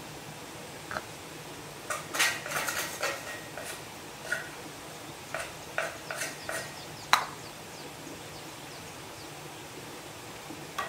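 A run of irregular clinks and clatters as hard, partly metal objects are handled and knocked together, a few of them ringing briefly, over a steady background hiss. The last and sharpest clink comes about seven seconds in.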